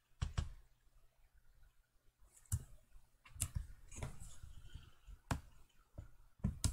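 Sharp, scattered clicks of a computer mouse being used to select and open items on screen, about six in all, with a quick pair just after the start.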